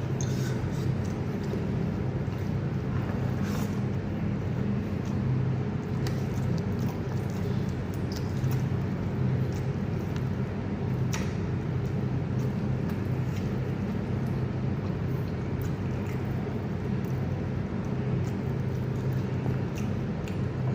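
A steady low machine hum that holds the same pitch and level throughout, with a few faint clicks now and then.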